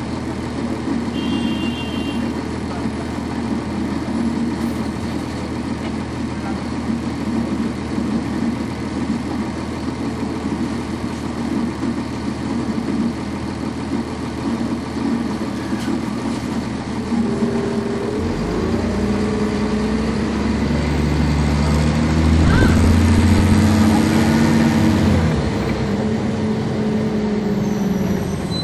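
The Cummins ISC diesel of a NovaBus RTS transit bus, heard from on board, idling at a stop. About two-thirds of the way in it pulls away: the engine note grows louder and climbs, then drops back in steps as the ZF automatic transmission shifts up.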